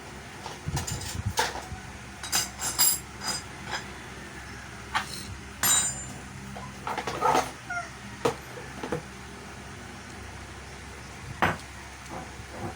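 Irregular small clicks, taps and knocks of hand tools on the plastic parts of an electrical plug as it is screwed together onto an extension cord.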